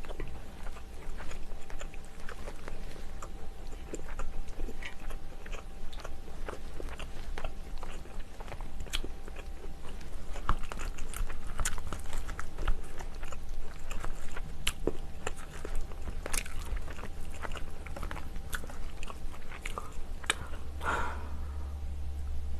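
A person chewing and biting mouthfuls of seafood stew and rice close to the microphone, with many small, sharp clicks throughout.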